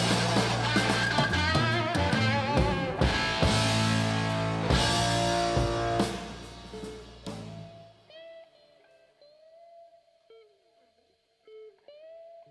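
Rock music with electric guitar and drums. About six seconds in the band fades out, leaving a quiet, sparse guitar line of single bent and sliding notes.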